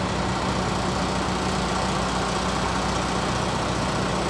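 Diesel engine of a semi-truck tractor idling close by, a steady low hum.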